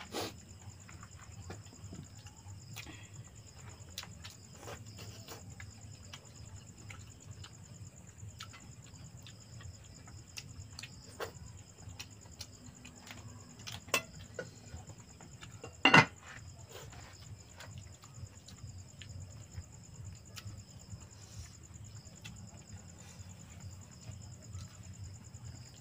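Crickets and other night insects chirring steadily in two even high tones over a low hum. Scattered soft clicks and taps from eating at the table, with one louder knock about sixteen seconds in.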